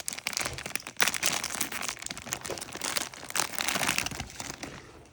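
Crinkly blind-box packaging being handled and torn open: a dense run of rustling and sharp crackles that dies away near the end.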